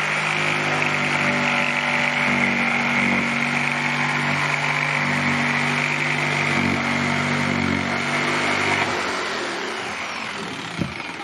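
Jigsaw cutting a curved arch shape out of plywood, running steadily, then stopping about nine seconds in, its motor winding down.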